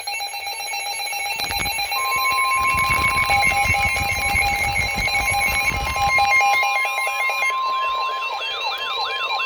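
Emergency alert tones. A single steady attention tone, the 1050 Hz NOAA Weather Radio warning tone, starts about two seconds in and holds. It overlaps other electronic alert sounds: a buzzy chatter in the first half, and a warbling tone that swoops up and down about twice a second from about two-thirds of the way in.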